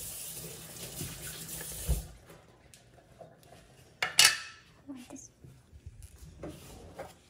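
Butter sizzling as it goes into a hot grill pan, a steady hiss for about two seconds ending with a knock. About four seconds in comes a loud clatter of pans and utensils, followed by a few lighter knocks.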